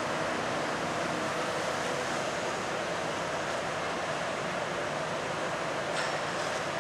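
Steady noise of mobile crane diesel engines running while hoisting an empty lifting beam, mixed with open-air harbour noise, with a faint tick about six seconds in.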